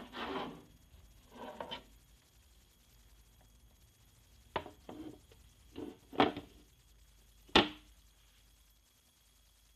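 Tesla B 101 reel-to-reel tape recorder's control keys being worked: two short rustling handling noises, then a run of five sharp mechanical clicks and clunks in the second half, the last the loudest.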